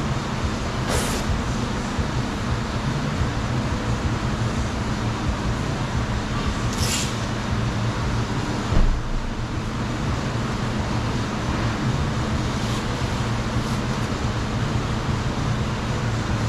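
Steady low mechanical hum, with brief hissing bursts about a second in and again near seven seconds, and a single knock about nine seconds in.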